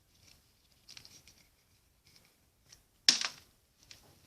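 Faint crinkling and small clicks of plastic packaging being handled, then a louder crackle about three seconds in, as a Kinder Surprise egg's toy capsule and its wrapped toy are opened.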